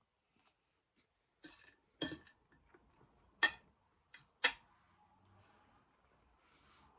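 A metal fork and knife clinking against a ceramic plate, a handful of sharp clicks, the loudest about three and a half and four and a half seconds in as the cutlery is laid down on the plate.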